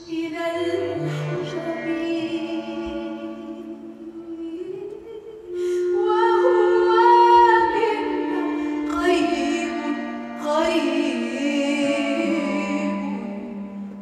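A woman singing long held, wavering notes over a live ensemble of oud, bowed strings and double bass. The music grows louder about five and a half seconds in, and again a little past ten seconds.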